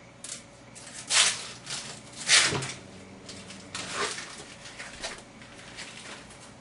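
Kitchen handling noises at a counter: a few short, noisy rustles and knocks as food and things are handled, the two loudest about one and two seconds in, then softer ones.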